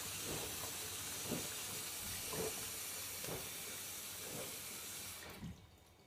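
Whirlpool FSCR12441 washing machine taking in water during its wash cycle: a steady hiss of water running into the drum, with faint swishes about once a second. It cuts off sharply about five seconds in.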